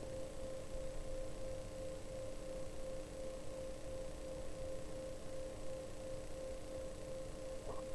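A steady electronic hum: one constant pure tone with a fainter lower tone beneath it and light hiss, and a faint click near the end.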